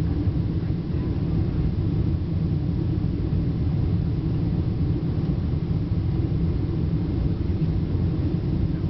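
Steady low rumble of engine and airflow noise inside the passenger cabin of a Boeing 777-200 airliner.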